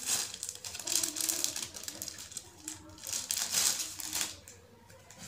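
Rustling and crinkling of a gift diary's packaging as it is handled and pulled out, in irregular bursts that die down about four seconds in.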